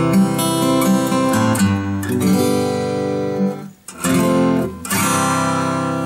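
Steel-string acoustic guitar (Seagull S6 with Elixir Nanoweb light strings) picked with a thick 2.0 mm Tusq pick, with single notes picked across a chord and left ringing. After a short break a little past the middle, two fuller chords are struck and ring out.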